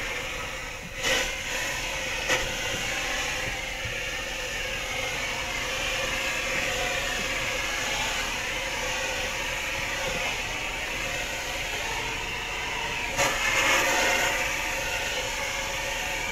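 Fire hose stream flowing onto burning debris, a steady hissing rush with short louder surges about a second in, about two seconds in and near the end.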